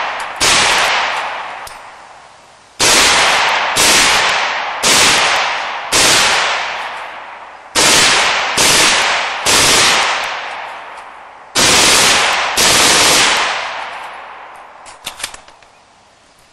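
A .22 LR belt-fed upper on an M16 lower firing full-auto in about a dozen short bursts, each starting sharply and echoing away over a second or two. A few faint clicks follow near the end.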